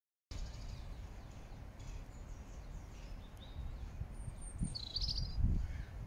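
A European robin gives a few scattered high, thin notes and a short bright trill about five seconds in. Under it runs a low rumble that gusts louder toward the end.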